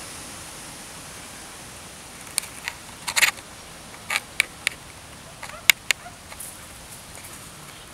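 Several short, sharp clicks and taps in uneven clusters over a steady hiss.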